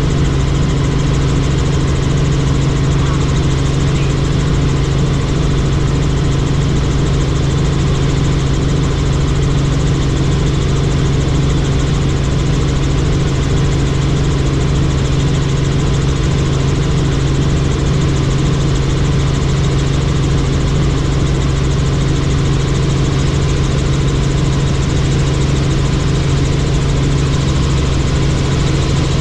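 Helicopter in flight: the rotor and engine run at a steady, unchanging level, with a strong low hum and a few fixed higher tones.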